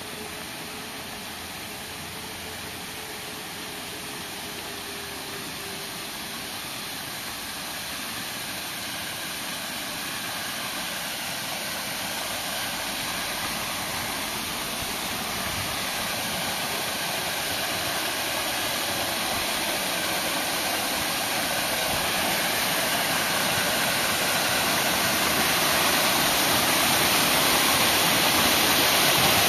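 Waterfall: water pouring in several thin streams down a stone wall into a shallow pool, a steady rushing that grows steadily louder throughout.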